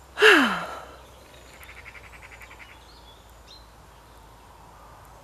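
A woman's sigh close to the microphone, a breathy voiced exhale falling in pitch that is the loudest sound. About a second and a half later a bird gives a fast chattering rattle for about a second, then a brief high chirp.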